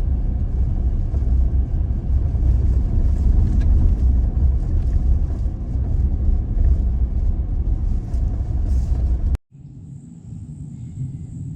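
Toyota Tacoma pickup driving, heard as a steady low rumble with faint ticks and rattles. About nine seconds in it cuts off suddenly to a much quieter stretch with a steady high-pitched hiss.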